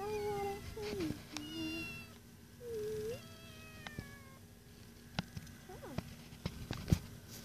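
Kitten meowing several times in the first four seconds, followed by a few short clicks and knocks.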